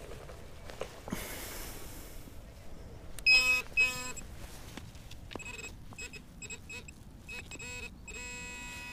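Minelab Equinox 800 metal detector beeping as its coil passes over a buried metal target: two loud beeps about three seconds in, then a run of shorter, quieter beeps near the end.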